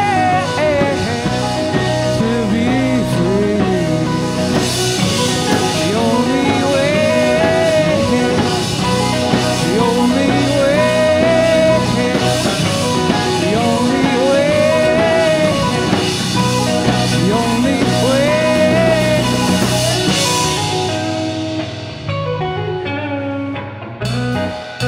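Rock band playing the instrumental outro of a song, with guitars, bass and drums. Gliding lead notes repeat in arcs over a cymbal wash, which drops away about twenty seconds in; the band then thins to a few sparse notes as the song winds down.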